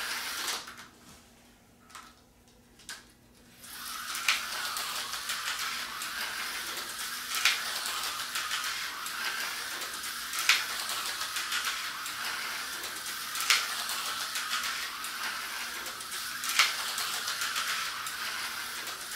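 Tyco HO slot car running laps on plastic track: a steady high whir from its small motor and pickups, with a sharp click from the lap counter each time it passes, about every three seconds. Near the start the whir drops away for about three seconds, then picks up again.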